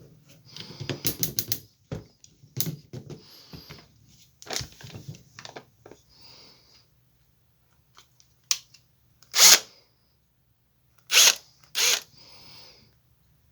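Handling of a Bosch cordless drill-driver: scattered clicks, knocks and rustles, then three short loud bursts in the second half.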